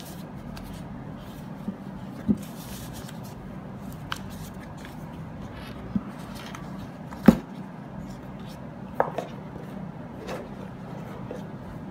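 Handling noise from a cloth pouch and a USB charging cable on a tabletop: a handful of light taps and knocks over soft rustling, the sharpest about seven seconds in.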